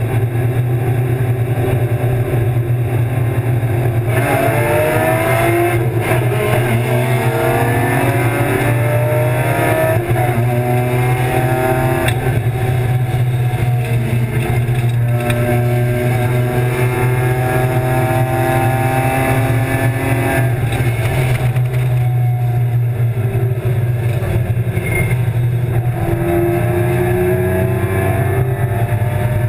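BMW E36 325's M50 straight-six race engine, heard from inside the stripped cabin over a steady low drone. The engine note holds steady for the first few seconds, then climbs hard under full throttle, dropping back at each of several upshifts.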